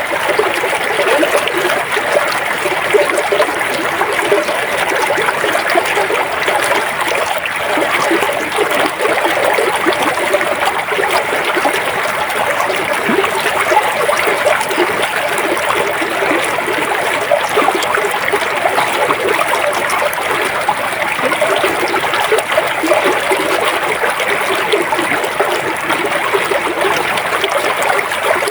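River water flowing steadily: an even, continuous rush and babble of water with no pauses or changes.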